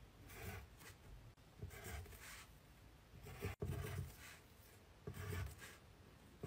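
Pencil writing on paper on a desk: faint scratching strokes in four short spells of under a second each.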